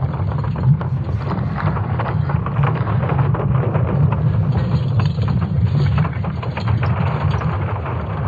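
Sonification of Earth's magnetic field built from ESA Swarm satellite data: a steady deep rumble with dense, irregular crackling over it.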